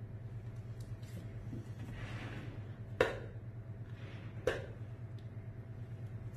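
Two sharp clicks about a second and a half apart over a steady low hum, with a soft rustle shortly before the first click.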